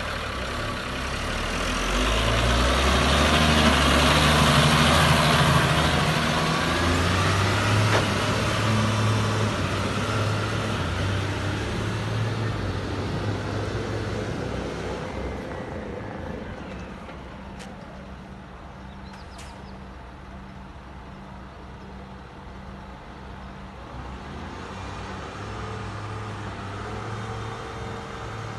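New Holland TM155 tractor's six-cylinder diesel engine running as the tractor drives past, loudest a few seconds in, then fading as it pulls away and rising slightly again near the end.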